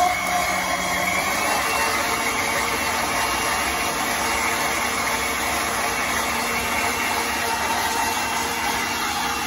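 Sujata electric mixer-grinder motor running steadily, blending mango milkshake in its tall jar.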